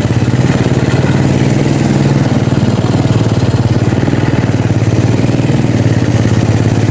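A small engine running at an even speed, with a fast, regular pulse.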